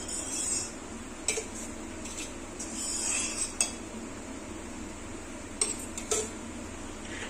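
A steel spoon clinking against a steel cup and a steel kadhai while oil is spooned into the pan: a few separate sharp metal clicks, spread out.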